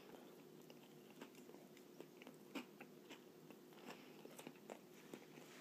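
Faint chewing of a mouthful of fried chicken club sandwich on toasted bread, with small irregular crunchy clicks.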